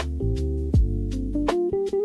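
Background music: held guitar-like notes over a beat with sharp clicks and bass notes that slide down.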